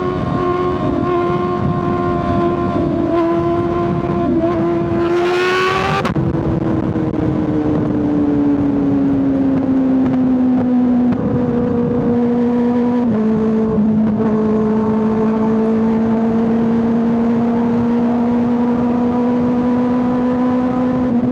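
Kawasaki ZX6R 636 inline-four engine running under the rider. The revs climb, then drop sharply about six seconds in, ease down, and step down once more near thirteen seconds before holding steady.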